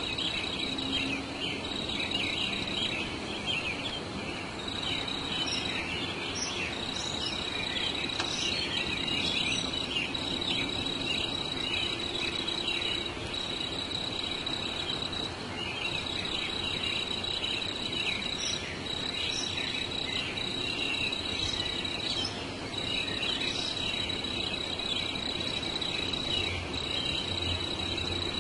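Outdoor insect chorus, likely crickets: a high, steady trill that breaks off briefly every second or two. A few faint bird chirps come through.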